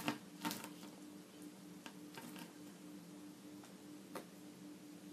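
Metal spoon clicking lightly against a glass bowl as a lump of butter is worked into condensed milk and Nesquik powder: a few faint, scattered clicks, the sharpest about half a second in, over a steady low hum.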